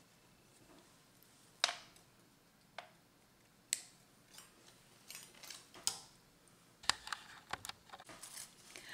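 Thin gold craft wire being cut and handled: several separate sharp snips and clicks, with light rustling between them in the second half.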